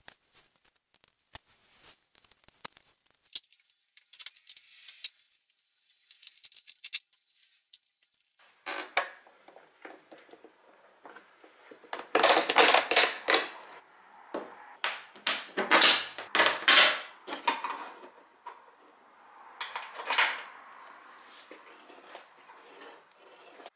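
Metal clinks, scrapes and knocks of hand work on a Land Rover Series III door: hinge bolts and fittings being handled and fitted as the door is hung. Sparse at first, then busier clatter from about nine seconds in.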